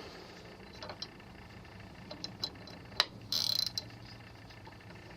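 Metal tool work tightening the fastening of a new extended handle on a milling table's crank: scattered sharp clicks and ticks, a louder click about three seconds in, then a brief rapid rattle lasting about half a second.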